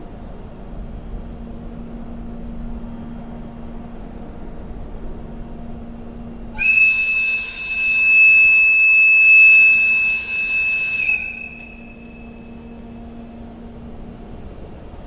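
EF64 electric locomotive's air whistle giving one long, steady, high-pitched blast of about four and a half seconds, starting a little before halfway and stopping sharply. Beneath it runs a steady low hum from the standing locomotive.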